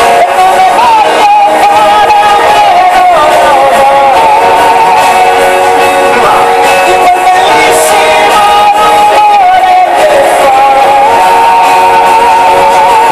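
A man singing a slow Italian ballad live over instrumental accompaniment, with long held notes.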